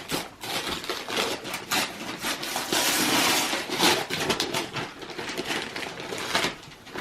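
Gift wrapping paper being torn and crumpled as a present is unwrapped: a run of crackling rips, busiest a few seconds in.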